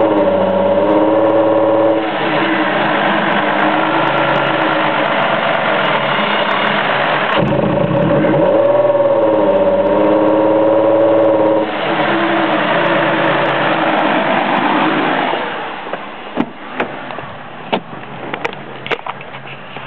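Ford Escape's V6 engine revved and held at raised speed, its pitch climbing again about seven seconds in and falling back near the end; the sound of catalytic converters clogged by unburned fuel from two misfiring coil-on-plug coils. A few sharp ticks follow in the last few seconds.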